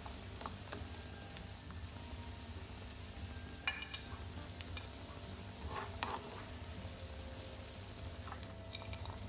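Chopped cashew nuts and raisins sizzling gently in ghee in a non-stick pan as they roast, with a few short scrapes and taps of a spatula stirring them.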